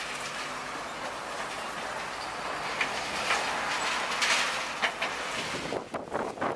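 Link-Belt demolition excavator working through a building's wreckage: steady grinding and scraping of metal debris with a faint high squeal, sharp clanks about three and four seconds in, and a rush of clattering near the end.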